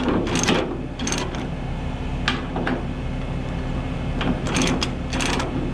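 A diesel engine idling steadily under a handful of sharp metallic clicks and clanks from a tie-down chain and ratchet binder being tightened on an excavator's track.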